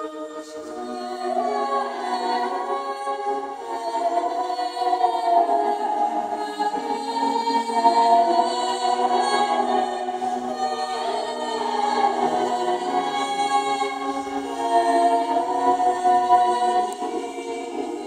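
Early-music ensemble with an organistrum playing: voices sing a slow melody over a steady held drone, which settles in about a second in.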